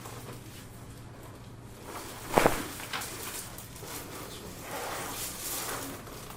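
Joints cracking during a chiropractic adjustment: one sharp, loud crack about two and a half seconds in, a softer pop about half a second later, then about a second of soft rustling.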